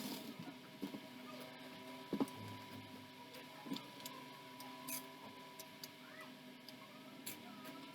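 Faint scattered clicks and knocks of plastic toy blocks being handled, with one louder knock a couple of seconds in, over a steady low electrical hum.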